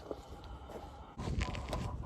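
Wind rumbling across the microphone, with scattered knocks and rustles of footsteps. A goat starts bleating a little past a second in.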